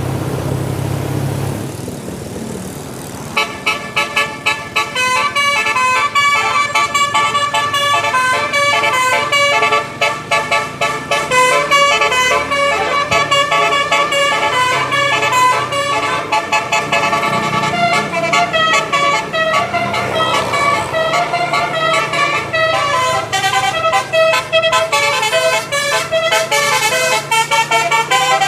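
A tour bus's 12-note 'telolet' musical air horn (basuri) playing a long, fast melody of many short notes, often several at once, starting about three seconds in over vehicle engine and road noise.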